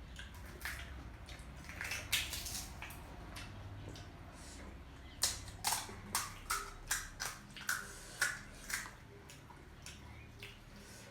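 Close-miked chewing of crunchy panipuri or chatpate: scattered crunching, then a quick run of about ten crisp crunches, roughly three a second, in the middle of the stretch.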